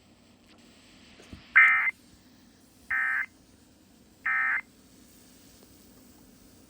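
Emergency Alert System end-of-message (EOM) signal: three short squawks of SAME digital data tones, evenly spaced about a second and a third apart, the first the loudest. They mark the end of the alert broadcast.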